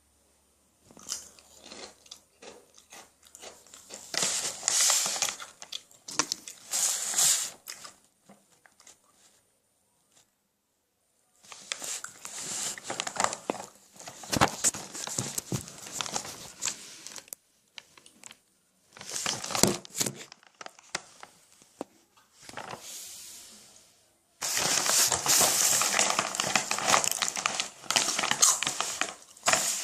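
Bursts of crinkling from a plastic snack bag, mixed with the crunching of chips being bitten and chewed, with a few seconds of total silence near the middle.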